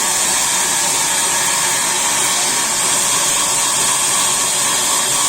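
Sawmill machinery running steadily: a continuous mechanical whir with a strong high hiss and a few steady tones, holding level throughout.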